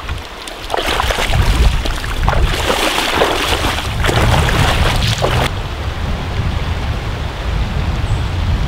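Fast mountain-river water rushing and splashing over a low rumble; the splashing stops abruptly about five and a half seconds in, leaving the rumble and a softer rush.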